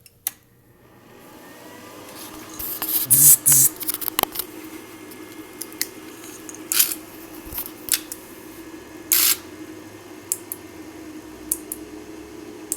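A steady electrical hum from the just-powered model-railway control setup, with scattered sharp clicks and clacks from handling the relay board and switch wiring. A louder cluster of clacks comes a few seconds in.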